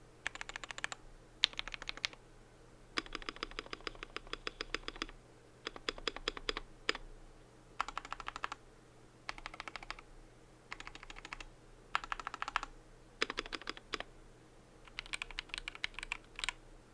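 Typing on a KBD67 Lite mechanical keyboard with Tealios V2 linear switches and ePBT keycaps. The keys go in quick runs of rapid clicks with short pauses between them, one longer run about three seconds in.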